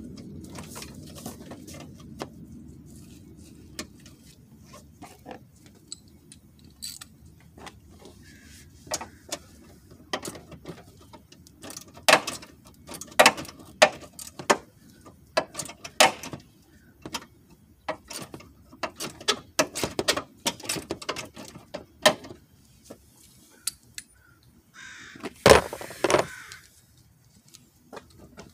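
Irregular plastic clicks and knocks from a car's front bumper cover and its fasteners being worked loose by hand, with one louder scrape lasting about a second near the end.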